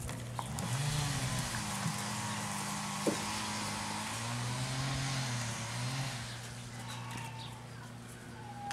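A motor vehicle passing by: engine and tyre noise swell about half a second in, hold with the engine note rising and falling, and fade away after about six seconds.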